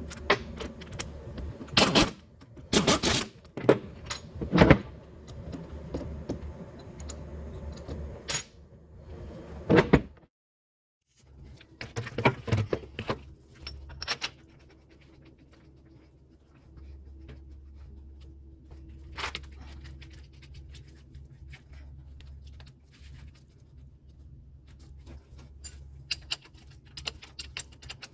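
Metal tools and starter-motor parts clinking and clattering as they are handled, in irregular knocks, heavier in the first half and lighter, scattered clicks later.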